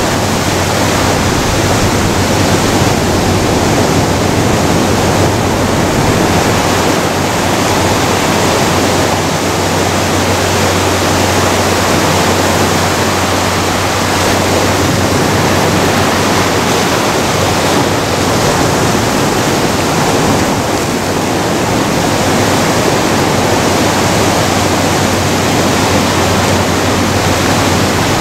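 Ocean surf breaking on rocks and sand, a loud, steady rushing wash that swells gently now and then.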